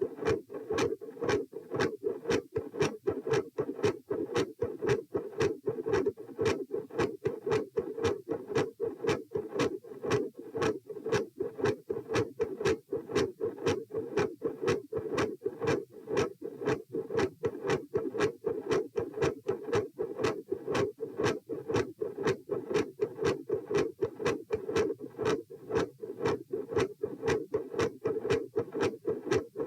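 Human heart sounds heard through a stethoscope at the pulmonic area: a regular lub-dub rhythm of short paired beats with a loud second heart sound (S2).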